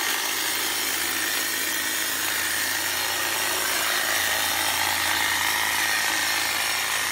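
Milwaukee M18 Fuel cordless hedge trimmer running, its brushless motor driving the reciprocating blades through leafy shrub branches. A steady buzz with a high whine, unbroken throughout.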